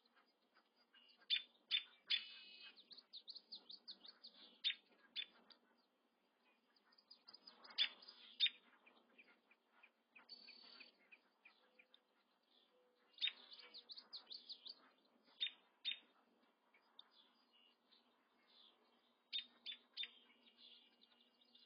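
Sandhill crane chicks peeping: clusters of short, high, rapid peeps that come every few seconds.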